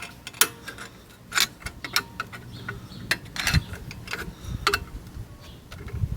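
Screwdriver prying a metal spring clip into place on a front brake caliper: irregular metallic clicks and knocks as the tip levers and slips against the clip.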